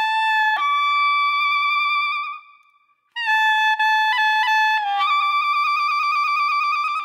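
Short instrumental music jingle: a melody of a few held, wavering notes in two phrases, with a brief break about two and a half seconds in.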